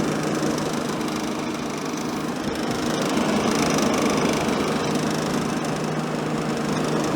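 1960s Emerson Quiet Kool window air conditioner running steadily, a constant hum under a rough rattle from a loose part of the unit.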